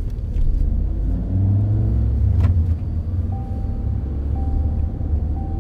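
Car being driven, heard from inside the cabin: a steady low engine and road rumble, with a single sharp click about two and a half seconds in.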